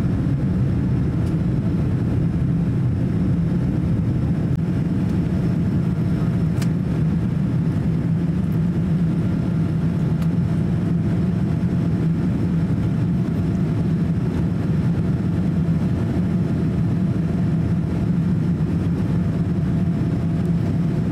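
Steady in-cabin drone of a Boeing 787-8 airliner climbing after takeoff: engine and airflow noise heard through the fuselage as an even, unchanging low rumble.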